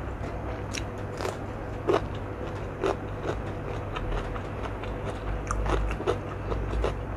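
Close-miked eating: moist chewing with scattered crunchy clicks. A slice of raw cucumber is lifted and bitten, with the crunches clustering in the latter half.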